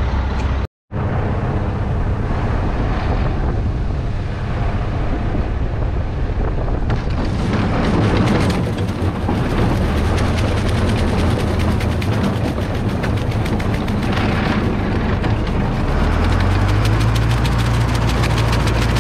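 Tractor engine running steadily, cut off briefly just under a second in; its pitch steps up about three-quarters of the way through as the engine speeds up.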